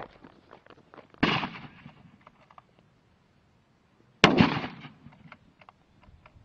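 Two hunting gunshots about three seconds apart, each a sharp crack that dies away over about half a second.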